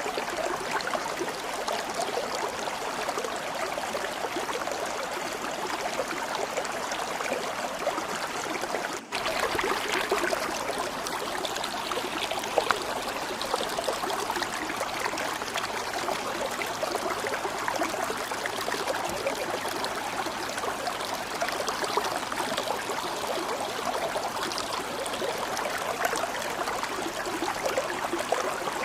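Water flowing steadily, a dense, even rushing and trickling like a stream, with one brief drop-out about nine seconds in.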